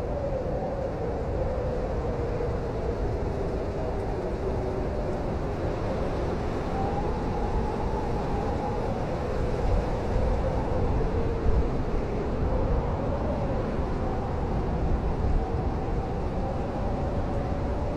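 Blizzard wind howling: a steady deep rumble with a moaning tone that slowly drifts up and down in pitch, and a few stronger gusts in the second half.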